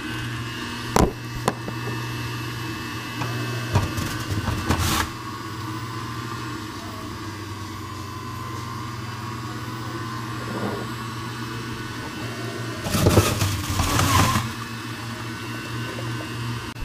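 Breville electric juicer running with a steady motor hum, with louder grinding bursts about four seconds in and again about thirteen seconds in as strawberries are pushed through it.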